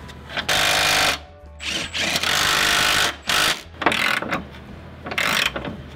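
Power ratchet running in about five short bursts, the longest under a second, as it drives bolts into the bracket at the front of a rear subframe.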